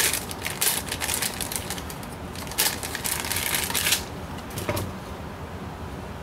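Rapid, irregular clicking and rustling of hard plastic parts as a Magpul RVG grip is handled and fitted to a rifle's rail, stopping about four seconds in, with a faint knock shortly after.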